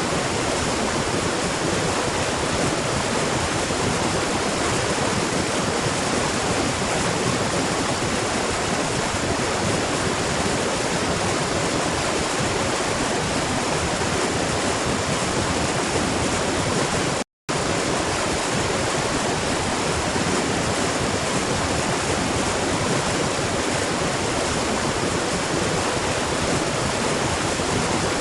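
Steady, even rush of falling water from a waterfall, broken by a brief dropout a little past halfway.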